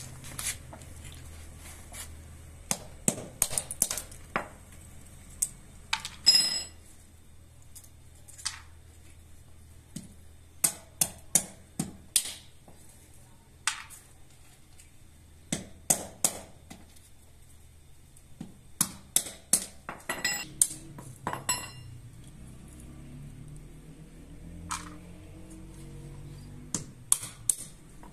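A small hammer cracking almonds in the shell on a stone tile floor: sharp knocks in quick clusters of two to four, with pauses between, a few of them ringing briefly.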